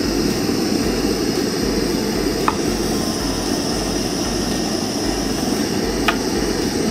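SOTO ST-301 cartridge gas stove's wide ring burner burning at full flame: a loud, steady rush of burning gas, with a couple of faint clicks as the stove is handled.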